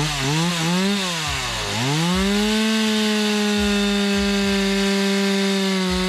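Stihl two-stroke chainsaw revved up and down a few times, dropping briefly about two seconds in, then held at a steady high pitch while the bar cuts into a log.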